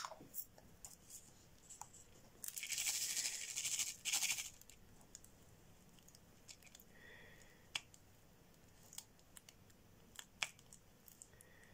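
Resin diamond-painting drills rattling in a plastic tray as it is shaken, for about two seconds, followed by a few sharp clicks and taps of a drill pen with a multi-placer tip pressing drills onto the canvas.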